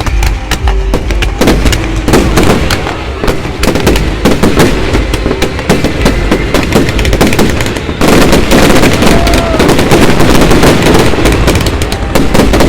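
Fireworks display: a rapid, continuous barrage of bangs and crackling from bursting shells. It grows denser and louder about eight seconds in.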